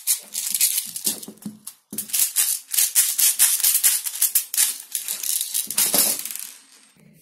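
Plastic airsoft BBs rattling in a clear plastic tube as they are shaken and poured into a plastic airsoft magazine: a dense run of rapid clicks with a short break about two seconds in, dying away near the end.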